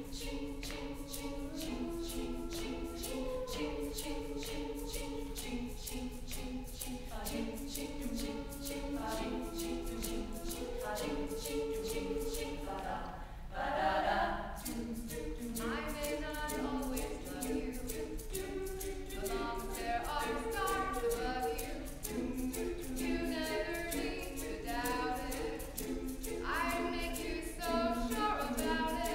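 Women's a cappella group singing in close harmony over a steady vocal-percussion beat. About halfway through, the voices swell briefly louder and brighter.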